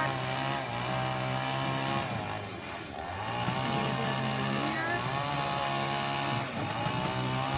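An engine running steadily with a low drone that dips briefly about two seconds in and again near the end. Wavering higher-pitched tones ride above it.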